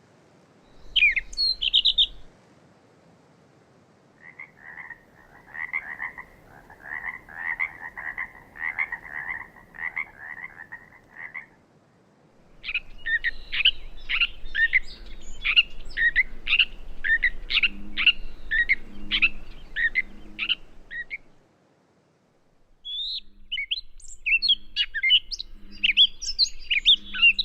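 Gray catbird singing a long run of mimicked phrases, heard as several separate bouts: a short high phrase, then a fast string of repeated short notes, then quick varied chattering notes with pauses between bouts.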